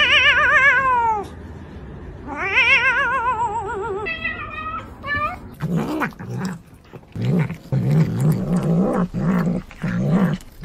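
Tabby cat yowling: two long wails with a wobbling pitch, then a few short, higher meows. From about halfway through, a cat chews and crunches a raw red bell pepper, with choppy low grumbling noises between sharp crunches.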